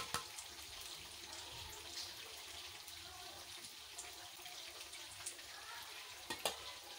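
Faint handling sounds of ground spices being tipped from a plate onto raw chicken drumsticks in a glass bowl: a light hiss with a few soft clicks, two of them close together near the end.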